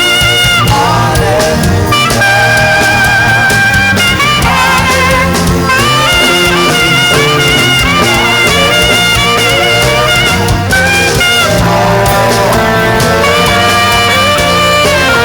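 Saxophone playing a slow worship melody in long held notes with vibrato, over steady bass and percussion accompaniment.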